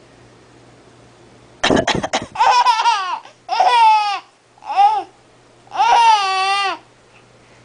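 A few quick fake coughs from an adult about a second and a half in, answered by a baby laughing in four high-pitched peals.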